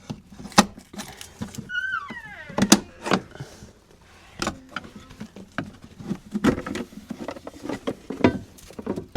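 Irregular knocks and clicks of things being handled, with a brief falling squeak about two seconds in.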